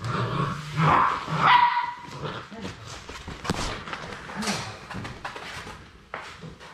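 Young Labrador Retriever puppies barking and yipping as they play-fight, with the loudest calls in the first two seconds, including a short high cry.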